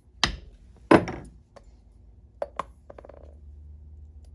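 Two sharp blows struck on a steel hand punch held upright on a piece of leather, the second louder and ringing briefly. A couple of light metallic clicks and a short rattle of small parts follow a little later.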